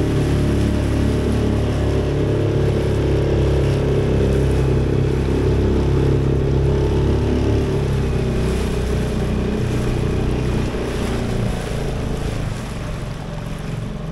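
Small outboard motor on an aluminium tinny running steadily under way, with the hiss and splash of the hull and wake through the water. The engine sound eases and grows quieter over the last couple of seconds.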